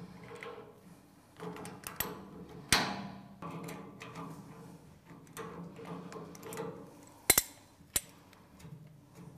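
Adjustable spanner working a compression fitting as a pressure-test hose is undone from copper pipework: a few sharp metallic clicks and clinks, the loudest two about seven and eight seconds in.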